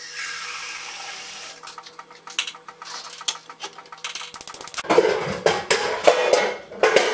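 Water hissing briefly, as from a tap, then a few scattered clicks and knocks, and from about five seconds in a loud clatter of metal pots and pans falling and banging together.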